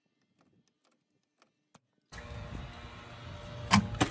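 Near silence at first, then a steady background hum comes in abruptly about halfway through. Near the end there are two sharp metal knocks as the freshly riveted horn bracket is tried by hand.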